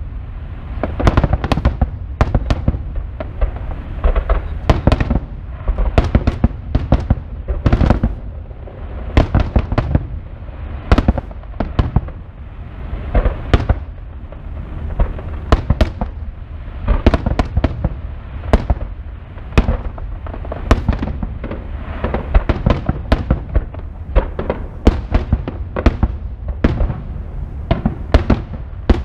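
Aerial fireworks display: shells bursting one after another, many sharp bangs, several a second at times, over a steady low rumble.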